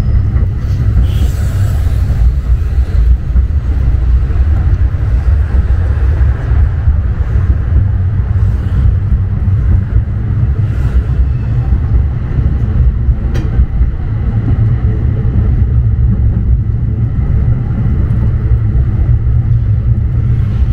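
Retro street tram running along its rails: a steady, loud low rumble from the wheels and running gear, with a faint click or two.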